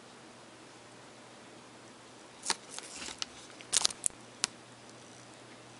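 Faint steady hiss, then about halfway in a handful of short, sharp clicks and ticks from cards and paper being handled close to the microphone.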